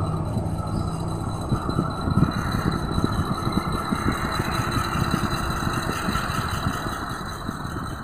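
A ceiling fan running: a steady whirr with an irregular low rattle, fading over the last second or so.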